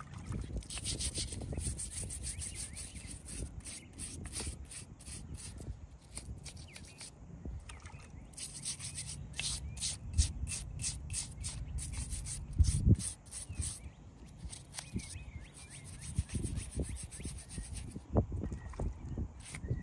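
Quick rubbing or scraping strokes by hand against the stone of a small angel-topped headstone, about five strokes a second, coming in runs with short pauses.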